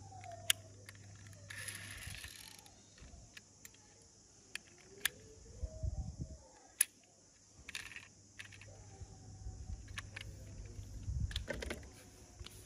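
Toy cars being handled: scattered light clicks and clacks of small plastic and metal parts knocking together, over a steady low hum.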